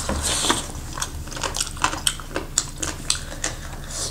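Close-up eating sounds from a mukbang: a run of quick wet clicks and smacks from chewing, several a second, over a steady low hum.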